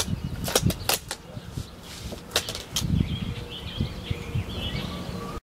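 Outdoor ambience with a handful of sharp clicks and knocks in the first three seconds and faint bird chirps in the second half. The sound cuts off suddenly near the end.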